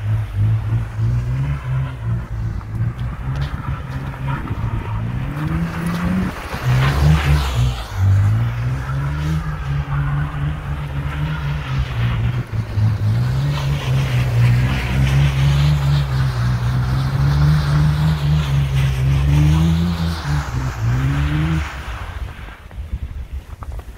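BMW Z4 2.5si's straight-six engine revving up and down as the car drifts in circles on snow, its pitch climbing and falling with the throttle over and over. The engine note drops away near the end.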